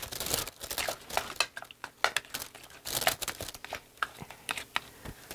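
Irregular crinkling and rustling of a plastic bag and disposable gloves as bread is pulled apart. Under it, a spatula scrapes as it stirs thick dip in a bowl.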